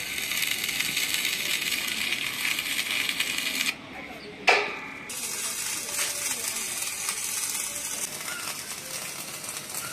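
Stick (arc) welding on steel beams: the crackling sizzle of the welding arc, which breaks off a little under four seconds in. A sharp metallic clink rings out about half a second later, and then the crackling arc starts again.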